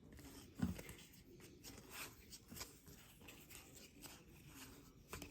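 Trading cards being handled and flipped through, faint soft rustles and light ticks as the card edges slide against each other, with one brief low sound about half a second in.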